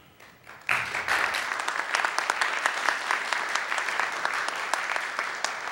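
Audience applauding: many hands clapping together, starting suddenly under a second in and beginning to die away near the end.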